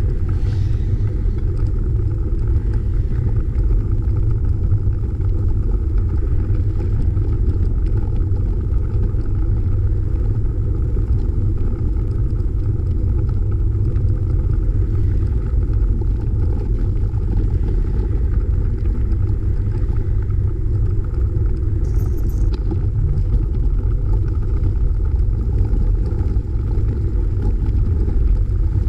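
Steady low rumble of wind buffeting the microphone of a camera on a moving bicycle, with the road noise of passing cars mixed in.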